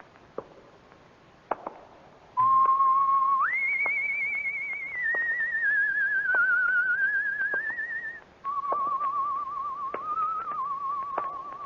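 A melody whistled with vibrato, one clear line starting a couple of seconds in: a note that leaps up, then drifts slowly down and up again. After a short break near the end it goes on as a lower wavering held note. A few faint clicks come before it starts.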